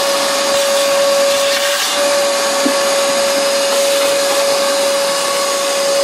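Shop vac running steadily: a constant motor whine over the rush of air through the hose.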